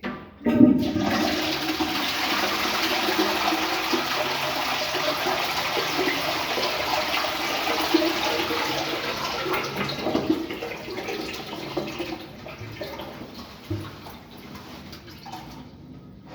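Toilet flushing: a short clunk, then water rushes loudly through the bowl, slowly dying down over the last few seconds.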